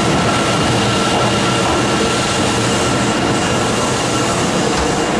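Subway train moving along the station platform: a steady, loud rumble of wheels and running gear with thin, steady whining tones above it.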